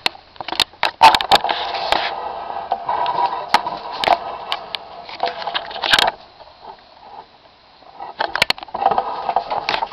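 Handling noise: rustling with scattered clicks and knocks as things are moved about, quieter for a couple of seconds after about six seconds in.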